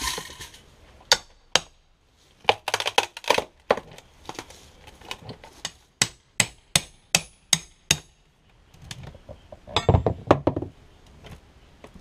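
A metal hand tool knocking and prying at the wooden trim under a window as the boards are worked loose: sharp knocks and metallic clinks. There is a quick run of about six knocks past the middle and a louder clatter near the end.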